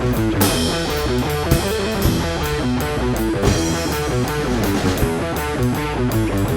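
Rock band music led by electric guitar over a steady drum beat, with cymbal crashes about half a second in and again around three and a half seconds.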